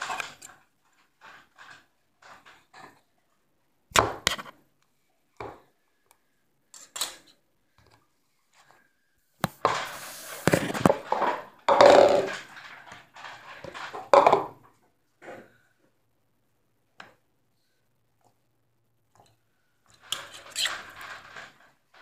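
Slime being squished and pressed with a plastic spoon, giving short scattered wet squishes and clicks. About halfway in there is a louder, busier stretch of handling noise, with plastic bowl and slime sounds, as the bowl is tipped and the slime is worked.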